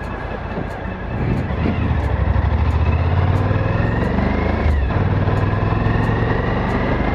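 Suzuki V-Strom 1000's V-twin engine accelerating. It gets louder about a second in, and its pitch climbs. Just under five seconds in it drops briefly for an upshift, then climbs again in the next gear.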